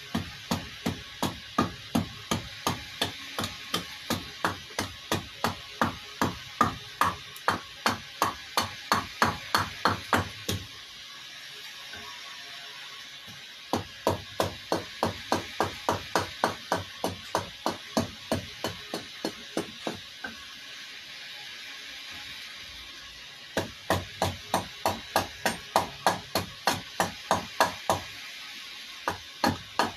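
Rapid, steady blows of a carving tool chopping into a wooden kuksa blank held on a stump block, about three strikes a second, in three runs broken by two short pauses.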